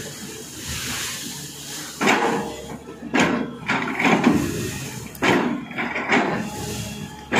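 Tata Hitachi excavator's steel bucket scraping and clanking against rocky soil as it digs, with a string of sudden clatters, about one every half-second to a second, over the engine running underneath.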